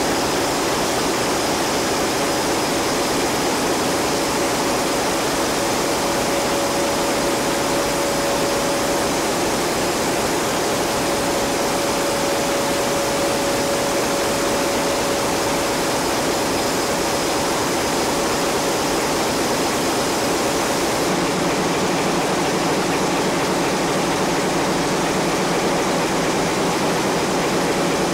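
Loud, steady machinery noise of large marine diesel engines running in a ship's engine room, with a faint steady whine through it. About two-thirds of the way in the sound grows duller and a lower hum comes up.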